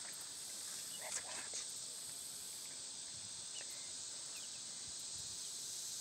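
Steady, high-pitched chorus of insects, with a few faint short sounds about a second in.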